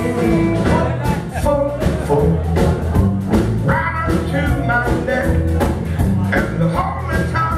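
Live blues-rock band playing loud: semi-hollow electric guitar over drums, with a man singing.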